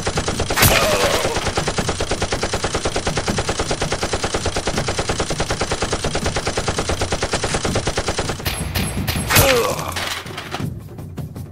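Rapid automatic machine-gun fire, a gunfire sound effect rather than the blaster's own whirr, running at about ten shots a second for some eight seconds and then stopping abruptly.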